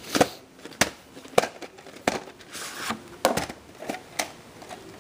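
A VHS cassette being pulled out of its cardboard sleeve and handled: cardboard and plastic scraping and rustling, with several sharp clicks and knocks from the plastic cassette.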